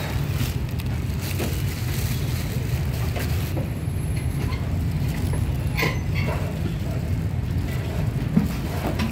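Street-market ambience: a steady low rumble with scattered clicks and knocks, and one louder knock near the end.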